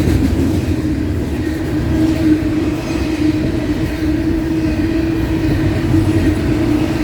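A train's cars rolling past on the track: a steady, loud rumble of wheels on rail with a continuous hum.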